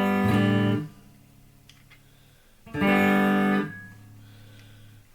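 Epiphone 1959 Les Paul Standard electric guitar played through an EVH 5150 Overdrive pedal into a Marshall DSL40 amp: two distorted chords about three seconds apart, each stopped abruptly. A quieter low note rings on after the second chord.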